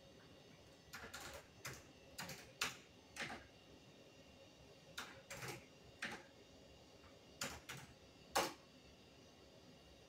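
Computer keyboard keys pressed one at a time: about a dozen faint, separate clicks at uneven spacing with pauses between, the loudest one about eight seconds in.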